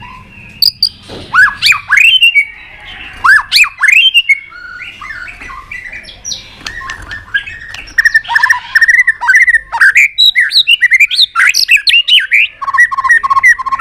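White-rumped shama singing: quick, varied whistled phrases that sweep up and down, with a few sharp clicks among them. From about eight seconds in it becomes a dense, loud run of rapid repeated notes.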